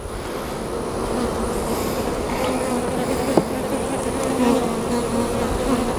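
Honey bees buzzing over an open hive, a steady wavering hum that swells over the first second. About three and a half seconds in, a single sharp click as a hive tool pries a frame loose.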